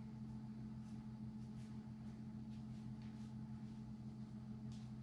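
Faint, soft footsteps on a tile floor from a person walking up on their toes, over a steady low electrical hum.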